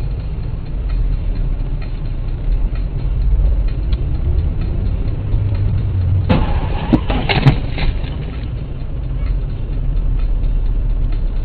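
Steady low rumble of a car's engine and road noise, picked up by a dash cam. About six seconds in comes a short burst of noise with two sharp knocks.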